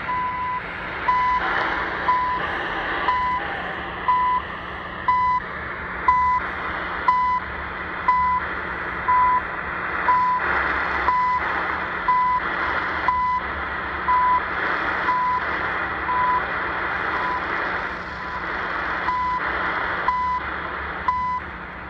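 CHU Canada time signal on 3330 kHz, heard through a SIHUADON D-808 portable shortwave radio's speaker: short beeps of steady pitch, one each second, over shortwave static, with one second's beep skipped near the end.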